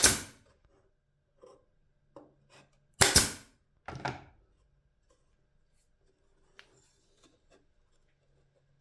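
Sharp wooden knocks and clacks of enclosure pieces being handled and struck during assembly. There is a loud knock at the start, a louder double knock about three seconds in and another just after four seconds, with lighter taps between and a few faint ones near the end.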